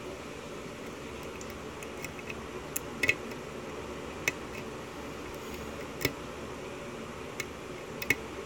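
Sharp little metallic clicks and ticks of a pick working the pin stacks of a 6-pin Dorma lock cylinder under tension, about seven of them, scattered and irregular, starting about two seconds in, over a steady background hum.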